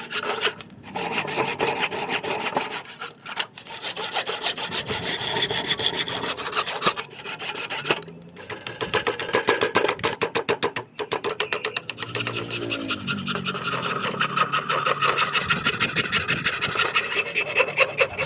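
A hand tool scraping and rasping on a wooden axe handle in rapid repeated strokes, with a few brief pauses.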